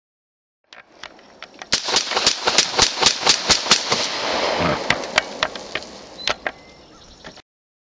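Olympic Arms 9mm AR-15 carbine fired rapidly in semi-automatic: a fast string of about ten shots, four or five a second, then a few more spaced shots.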